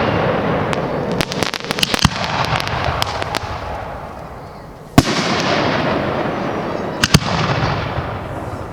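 Fireworks going off: a loud aerial shell burst about five seconds in, followed by a long crackling, rushing tail, with a run of sharp cracks in the first few seconds and two more quick reports near seven seconds.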